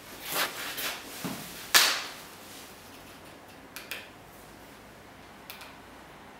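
Tools and parts being handled on a steel-topped workbench: a brief scrape and rustle, a dull knock, then one sharp knock, the loudest, a little under two seconds in, followed later by a few light metallic clicks.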